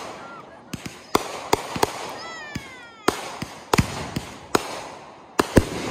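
Consumer aerial fireworks going off: about a dozen sharp bangs from bursting shells, some in quick pairs, with crackling between them and a few falling whistles.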